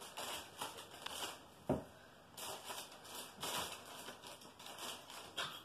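Brown paper bag rustling and crinkling in irregular bursts as a kitten bats at it and pushes it about, with a soft thump about a second and a half in.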